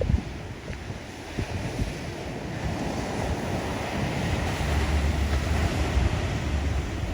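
Large ocean surf breaking, a continuous wash of waves that builds about halfway through, with gusts of wind rumbling on the microphone.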